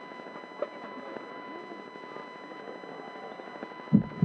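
Large outdoor crowd standing quiet: a low hush of murmur and scattered faint distant voices, over a faint steady tone. Near the end come two dull low thumps about a quarter second apart.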